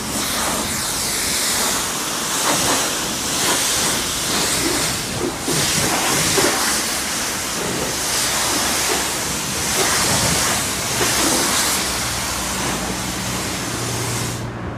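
Self-service car wash pressure-washer wand spraying water onto a car: a steady hiss that swells and eases every second or two, over a low pump hum. The spray cuts off suddenly just before the end.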